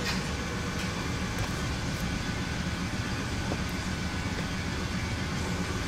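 Steady low hum and rumble of workshop room noise, with a few faint clicks as the greasy half-shaft is handled.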